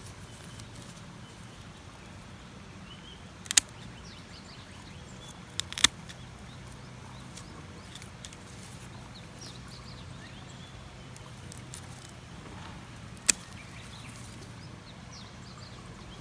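Hand pruning shears snipping lavender stems: four sharp snips, one about three and a half seconds in, two in quick succession near six seconds, and one near thirteen seconds, over a steady low background hum.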